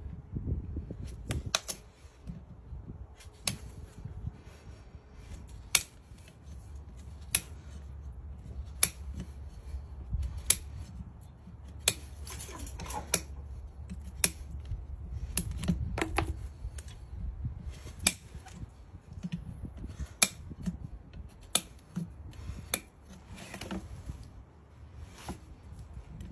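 Farrier's steel hand tools clicking against a horse's steel shoe: sharp metal clicks every one to two seconds as a nail puller grips and works the shoe's nails.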